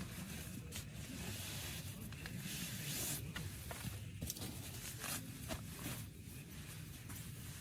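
Steady hiss of rain and wind on a tent, with rustling and scraping of gear being handled and a few short sharp clicks.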